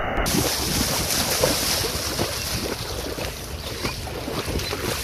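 Water splashing in quick, irregular bursts as a multi-pronged bamboo fishing spear (kotch) is jabbed into shallow river water, with wind rumbling on the microphone. The splashing eases off toward the end.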